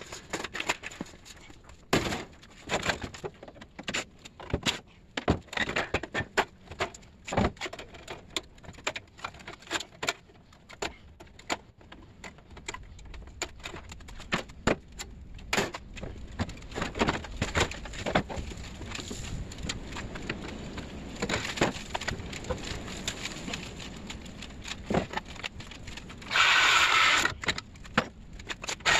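Irregular metal clanks, knocks and rattles as an outdoor air-conditioner unit is pulled apart by hand for scrap. Near the end a power tool runs briefly, for about a second.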